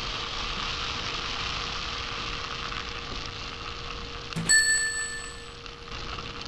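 Cartoon sound effect of a vending machine's card reader: a steady hiss over a low hum, then about four seconds in a click and a bright bell-like chime that rings for about a second, the sign that the card payment has gone through.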